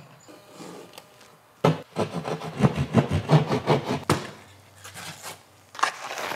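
Drywall being cut through: a quick, rhythmic run of sawing strokes starting about a second and a half in and stopping after about two and a half seconds.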